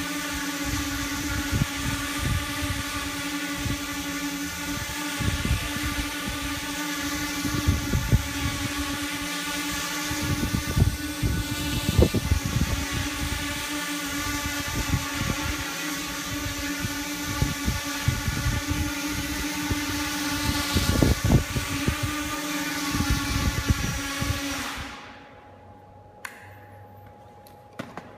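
Quadcopter's brushless motors and propellers whining at a steady hover pitch over an uneven low rumble. About 25 seconds in the motor whine dies away quickly as the drone sits landed on the floor.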